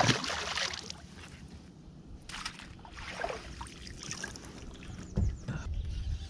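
A short burst of water splashing at the start as a pike is let go over the side of a kayak, then handling noise and a few dull knocks against the kayak hull as a fishing rod is picked up.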